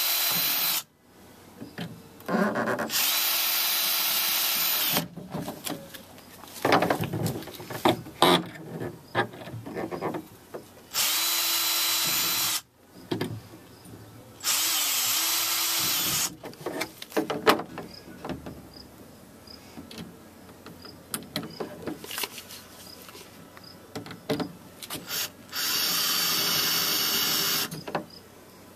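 Power drill running in five separate bursts of about two seconds each, spinning up at the start of each and winding down at the end, pre-drilling holes for hinge brackets. Between the bursts come scattered clicks and knocks of parts and screws being handled.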